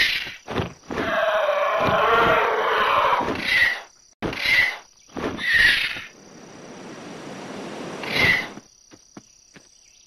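Pteranodon creature sound effect: a long, wavering screech followed by a string of short, sharp shrieks, with a hiss building up between them before one last shriek.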